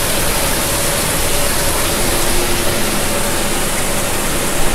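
Emergency drench shower pouring water at 20 gallons per minute, a steady rush of water falling from the showerhead and splashing into its stainless steel enclosure.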